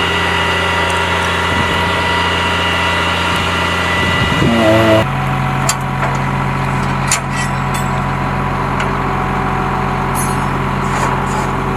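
Military truck engine idling steadily, its drone changing abruptly to another steady engine tone about five seconds in, with a few sharp clicks after.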